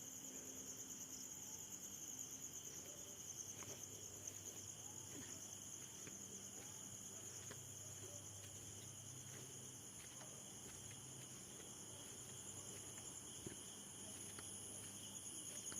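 Crickets chirring steadily and faintly at several pitches at once, with a few soft ticks.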